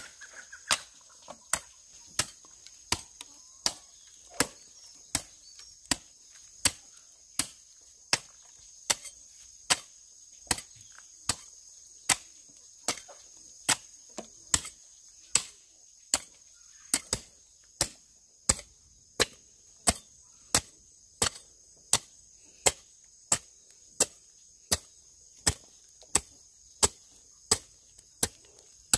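A metal-bladed hoe chopping into dry, lumpy soil with steady, evenly paced strikes, a little more than one a second. A steady high-pitched buzz runs behind it.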